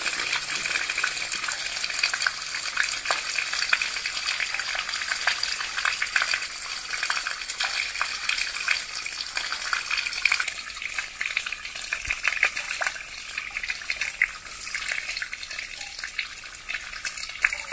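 Dirty carpet-cleaning wastewater gushing from a dump hose and splashing onto concrete: a steady, spattering hiss that eases a little in the second half.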